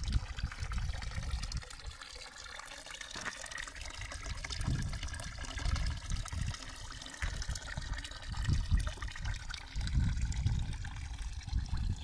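Water from a pipe spout splashing steadily into a concrete fountain trough, a continuous trickle. Low rumbles of wind on the microphone come and go.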